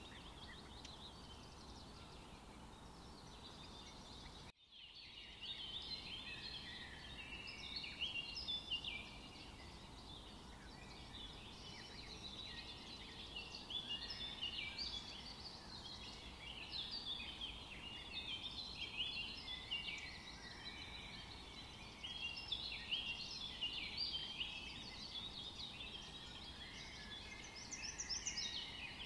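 Wire whisk beating a creamed butter and egg mixture in a glass bowl, its wires clicking and scraping rapidly against the glass in irregular runs. The sound drops out briefly about four and a half seconds in.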